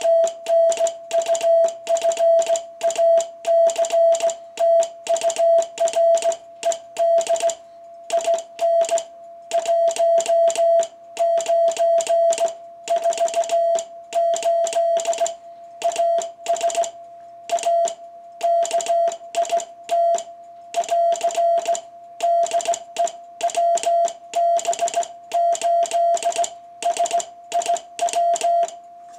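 Morse code (CW) keyed on a 1948 Micamold XTR-1 vacuum-tube transmitter, heard as a rapid on-off tone through a nearby communications receiver, with a slight warble where the transmitter's side tone oscillator beats against the receiver audio. Between characters the faint steady note of the continuously running 6AG7 crystal oscillator stays on. The keying stops just before the end.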